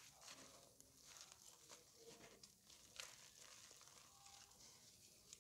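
Hands crushing and crumbling reformed gym chalk blocks: faint soft crunching and crackling of the chalk breaking apart, with a sharper snap about three seconds in.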